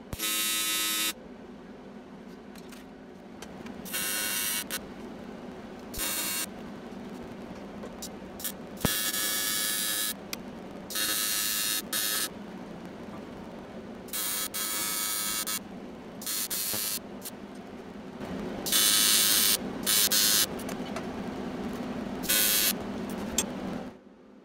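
TIG welding arc on aluminium: a harsh buzz that strikes and stops in about ten short bursts of half a second to a second or so, over a steady low hum. It goes quiet near the end.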